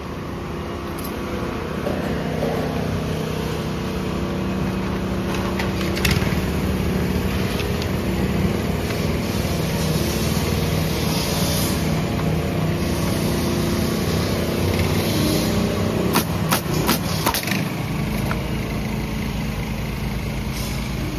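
An engine running steadily under some load, its pitch rising slightly about two seconds in. A cluster of sharp metallic clanks comes about sixteen to seventeen seconds in.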